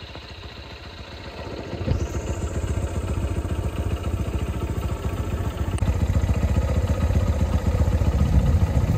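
Motorcycle engine idling with a fast, even pulse, quieter for the first two seconds and then louder and steady.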